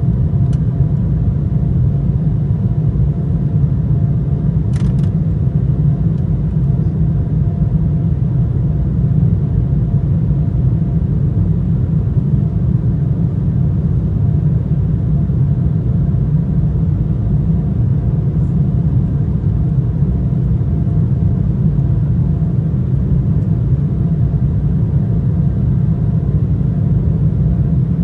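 Steady low rumble inside the cabin of an Embraer 175 airliner, its GE CF34 turbofan engines and the airflow at high power, with faint steady tones above the rumble.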